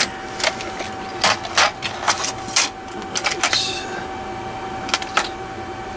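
Irregular light clicks and knocks of small hard objects being handled on a workbench: hands moving small tools and plastic parts of an opened computer mouse. A short rattling scrape comes a little past the middle, and a faint steady whine runs underneath.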